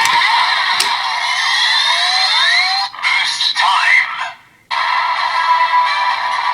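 Electronic sound effects and music from a DX Kamen Rider Geats transformation belt toy as the Boost buckle is used, thin and tinny through its small speaker. Clicks and rising swooping tones come first, then it breaks off briefly about four and a half seconds in and a looping standby tune starts.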